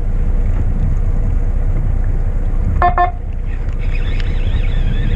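Wind buffeting the microphone on an open boat at sea: a loud, unsteady low rumble. A brief pitched sound comes about three seconds in.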